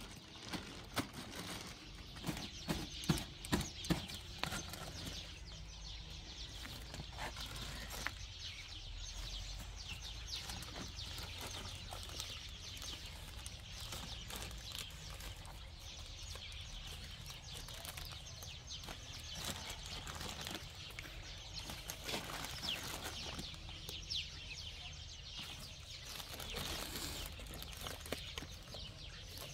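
Chickens clucking and small birds chirping, with a few sharp knocks in the first few seconds.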